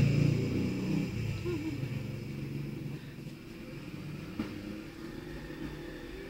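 A low engine-like rumble that fades away over about three seconds, leaving a faint steady background with a single click a little after four seconds in.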